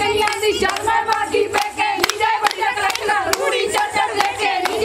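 Group of women singing Punjabi boliyan together, with steady rhythmic hand clapping of the gidha at about three claps a second.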